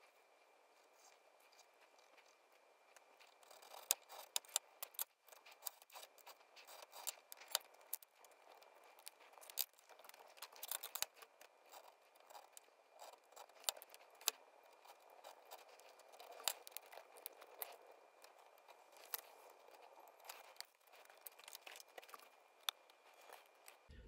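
A small box-cutter knife scoring and cutting a mica card along a steel square, heard as faint scratching with scattered light clicks from the blade, the square and the card being handled. The first few seconds are near silence.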